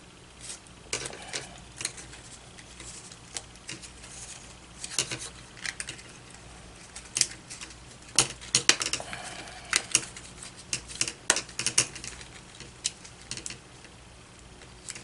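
Cardstock pieces being bent and worked together by hand, giving irregular sharp clicks and short paper rustles, busiest from about eight seconds in.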